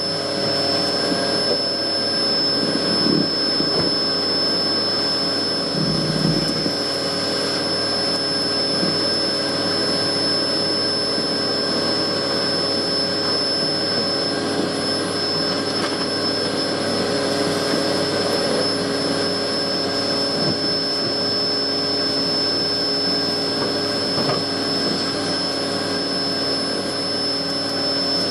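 Vacuum cleaner running steadily with a high whine, used to suck honeybees out of a colony in a wall cavity.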